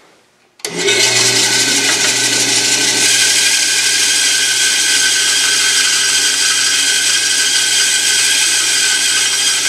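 Band saw running and cutting through a workpiece held to the blade by hand, a steady, loud sawing noise over the motor's low hum. It sets in abruptly less than a second in.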